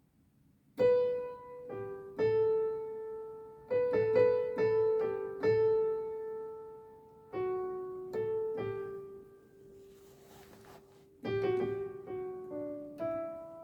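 Piano playing a slow single-note melody on B, G and A in D major, the beginner pattern 6-4-5-4-5-6-5-4-5. Each note rings on into the next. After a short pause a few lower notes follow near the end.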